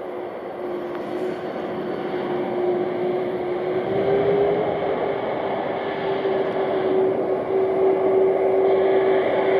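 Jet engines of a FedEx wide-body twin-jet freighter at taxi power: a steady whine over a broad rush, growing louder as the aircraft taxis closer, the whine stepping up slightly about four seconds in.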